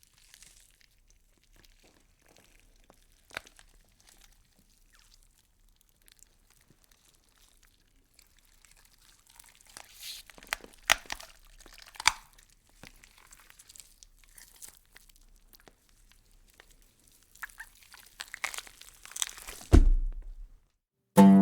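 Wood fire crackling and popping, the pops sparse at first and coming more often from about halfway through. A louder, deeper thump comes near the end.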